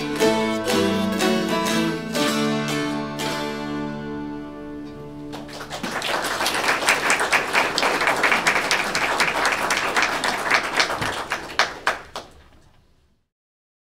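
Ensemble of mountain dulcimers plucking the last bars of a rag, ending on a chord that rings out about five seconds in. A small audience then claps for several seconds before the sound fades away.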